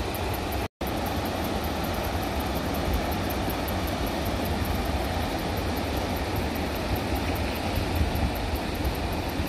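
Steady rushing of the Hooker River's glacial meltwater over boulders, with a heavy, uneven low rumble. The audio cuts out completely for a split second just under a second in.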